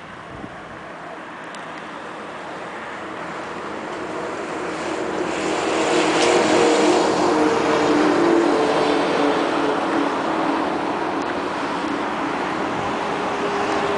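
An engine running and growing steadily louder over the first half, then holding steady: a hum with a broad rushing noise over it.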